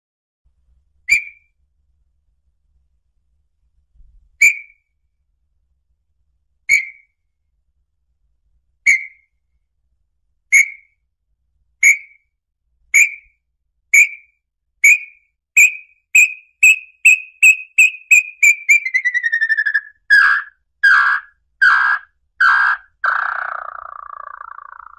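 Lambu pé-vermelho, a small red-legged tinamou, singing: clear whistled notes that start about two seconds apart and speed up into a fast run, sliding lower in pitch. The song ends in a few louder, lower notes and a short falling trill.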